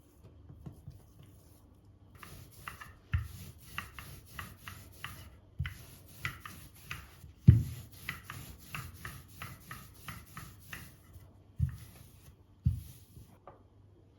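Rhythmic scraping strokes in kitchen food preparation, about three to four a second, broken by four louder dull knocks.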